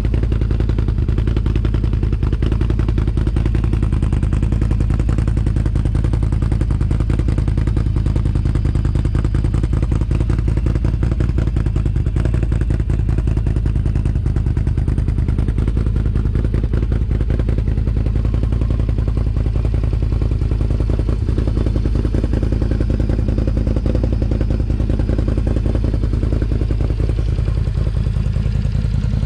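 Can-Am Outlander XMR 1000 ATV's V-twin engine running through a Yoshimura aftermarket exhaust, a steady loud rumble whose pitch rises near the end as the engine speeds up.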